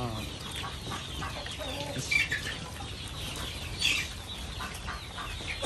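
Chickens clucking among a group of piglets eating at a trough, with many short chewing and rustling sounds; two louder, sharp calls stand out about two and four seconds in.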